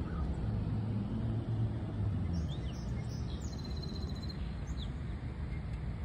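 Steady low outdoor rumble with a few faint, short bird chirps about two and a half to five seconds in.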